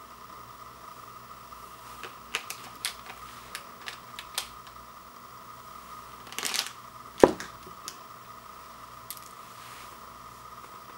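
Light clicks and taps from handling the noodle packet and sauce packet, then one sharp knock as the white ceramic bowl is set down on the wood floor, over a faint steady high hum.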